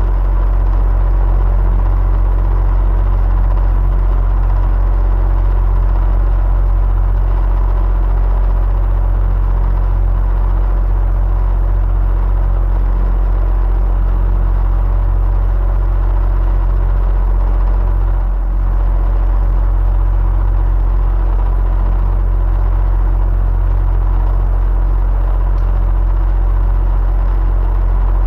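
Electric fan running steadily: a deep, even hum with a faint steady whine above it. The level dips briefly about two-thirds of the way through.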